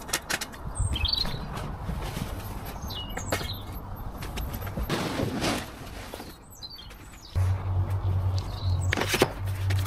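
Aluminium folding ladder being opened out and set up, with scattered clicks and knocks from its frame and hinges, while small birds chirp now and then. About seven seconds in, a steady low hum starts.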